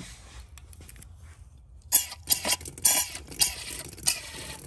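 Solvent cleaner sprayed into a tractor engine block's oil passages and bearing bore in about five short bursts, starting about two seconds in, flushing out metal debris left by a spun crank bearing.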